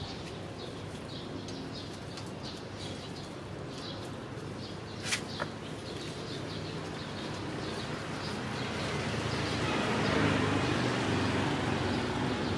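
Small birds chirping rapidly, several short high chirps a second, with a sharp click about five seconds in. From about eight seconds a rushing noise with a low hum swells and stays louder.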